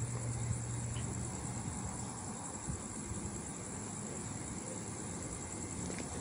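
Steady high-pitched chorus of night insects. Under it, a low hum fades out about a second and a half in.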